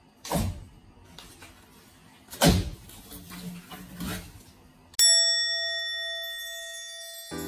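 Scraping, crumbling noises as broken plasterboard and wallpaper around a hole in a wall are worked by hand, three times. About five seconds in, a bright bell-like chime sound effect rings, fades, and cuts off abruptly near the end.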